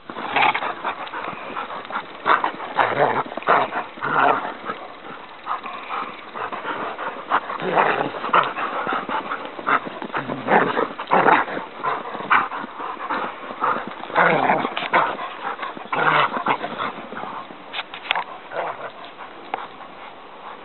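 Two dogs play-fighting, vocalizing in quick, irregular bursts throughout.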